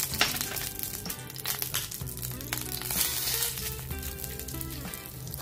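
Background music playing over a light sizzle of ghee in a nonstick frying pan. Semolina is tipped into the hot ghee partway through with a dry, grainy hiss.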